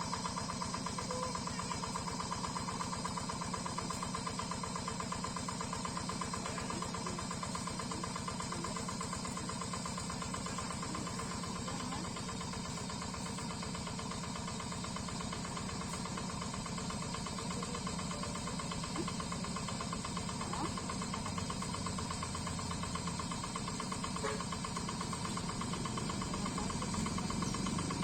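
Yanmar single-cylinder diesel engine of a Quick G3000 Zeva two-wheel hand tractor running steadily with a rapid, even firing beat, a little louder near the end.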